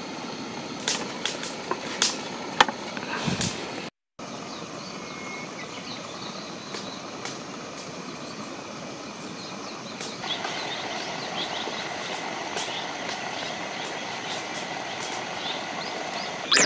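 Outdoor ambience: a steady background hiss with faint high chirps, and a few light clicks and knocks in the first four seconds.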